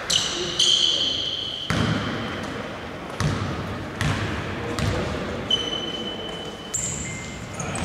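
A basketball bouncing on a hardwood court, several single bounces about a second apart, as the free-throw shooter dribbles before his shot. Short high squeaks come from sneakers on the floor.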